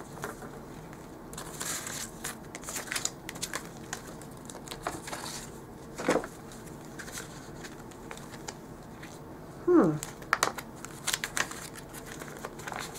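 Plastic sticker pockets and paper planner pages being leafed through by hand, crinkling and rustling in short irregular bursts. A brief falling-pitch sound, the loudest moment, comes near ten seconds in.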